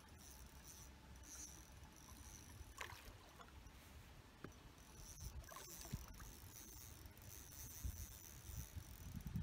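Faint handling noise from a carp feeder rod and reel while a hooked carp is played, with a few soft clicks over a low rumble.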